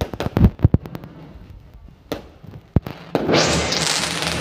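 Daytime aerial fireworks going off: a quick cluster of sharp bangs in the first second, two more single reports about two and almost three seconds in, then a dense, continuous rush of noise setting in just after three seconds.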